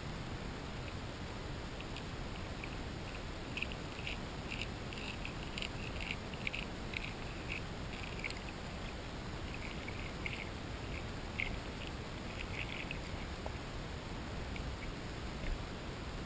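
Grass carp crunching floating cat kibble and sweetcorn with their throat teeth, heard underwater as clusters of sharp clicks and cracks from about three to thirteen seconds in, a few more near the end, over a steady underwater hiss.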